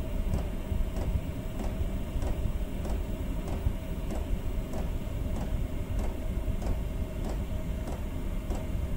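Chinese-clone diesel air heater running: a steady low rumble from burner and fan, with the fuel dosing pump ticking evenly about twice a second.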